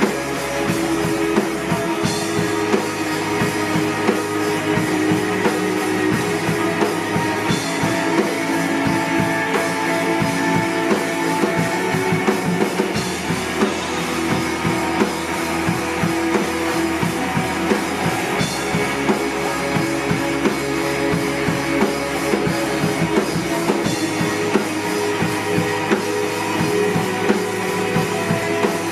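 Rock band playing live: a drum kit beating steadily under sustained guitar chords, in an instrumental passage without singing.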